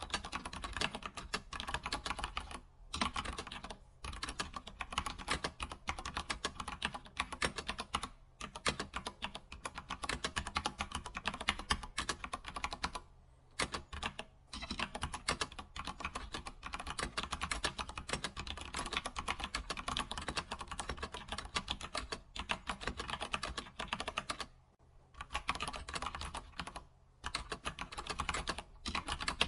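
Computer keyboard being typed on at a fast, steady pace, dense key clicks with short pauses every few seconds.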